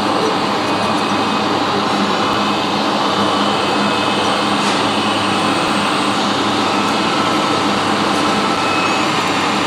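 Radio-controlled New Holland wheeled excavator working its hydraulic grapple, its pump running steadily under a dense, unbroken background din.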